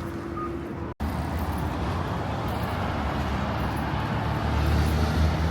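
City street ambience: steady traffic noise with a low vehicle engine hum, broken by a sudden brief gap about a second in.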